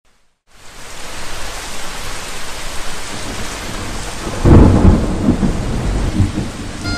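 Rain fading in within the first second. About four and a half seconds in, a loud rumble of thunder joins it and dies away over a second or two.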